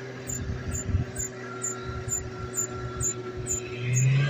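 Pickup truck engine running under load while towing a vehicle stuck in soft desert sand, revving up near the end.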